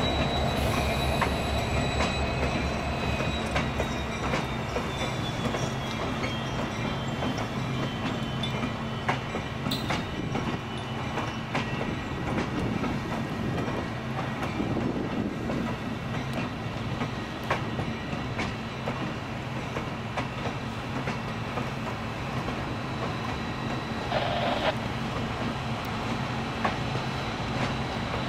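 Siemens-built Brightline passenger cars rolling slowly past, their wheels clicking over rail joints. A thin high wheel squeal at the start fades over the first few seconds, with a low steady hum underneath. A brief squeal comes again near the end.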